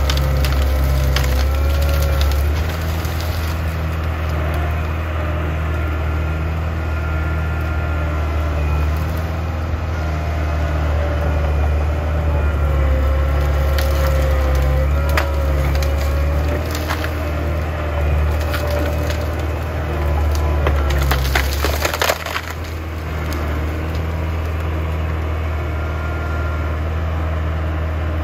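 Track loader's diesel engine running steadily as the machine pushes over trees and brush, with wood cracking and splintering throughout. There is a dense burst of snapping a little past twenty seconds in.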